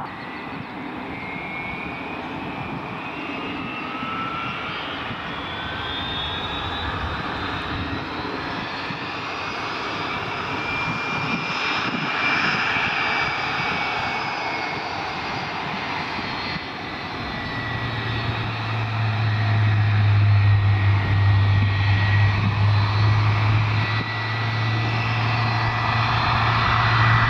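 Boeing 757-200's jet engine starting: a whine that rises steadily in pitch for about ten seconds, then settles into a steady run over the engine's rushing noise. A strong low steady hum joins about two-thirds of the way through, and the sound grows louder toward the end.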